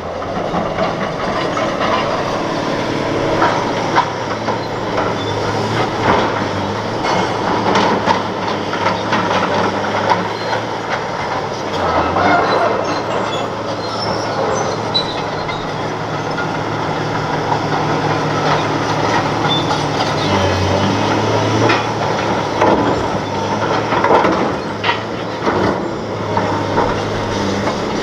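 Bulldozer working over hardened lava rock: its diesel engine runs steadily under load, with frequent knocks and clatter from the steel tracks and the rock being crushed and shoved.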